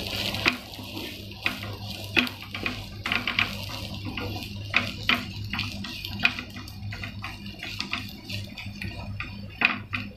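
Spatula scraping and tapping against a frying pan as chopped onions are stirred while frying, in irregular clicks and scrapes over a steady low hum.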